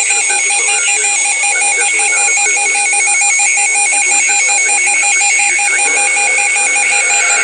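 Emergency Alert System attention signal: a loud, steady two-tone electronic alarm with a rapid pulsing edge, the tone that announces a broadcast emergency alert, here a tornado warning.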